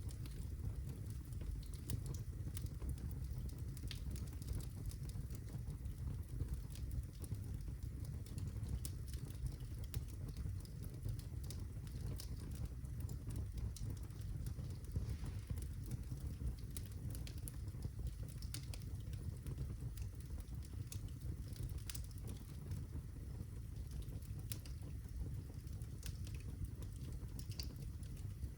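Birch logs burning in a fireplace: a steady low rumble of flames with frequent small crackles and pops scattered throughout.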